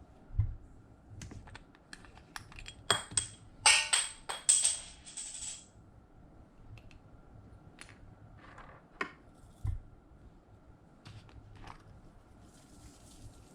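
Hands working slime with makeup glitter: scattered sharp clicks and pops, with a dense run of crackly, rattling clicks about three to five seconds in.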